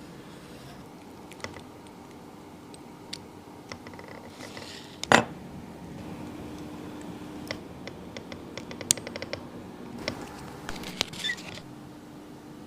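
Small clicks and light scrapes of watchmaker's tools on the parts of a wristwatch being worked on. There is one sharp click about five seconds in, and a quick run of even clicks a little later.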